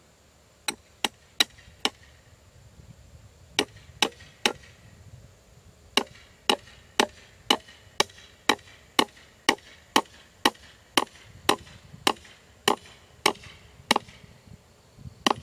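Hammer blows on a wooden fence corner post: four quick strikes, a short pause, three more, then a steady run of about two strikes a second.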